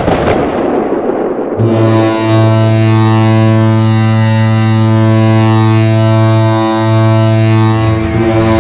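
Hockey arena goal horn blowing one long, loud, low steady note. It comes in about a second and a half in, after a short burst of noise that dies away.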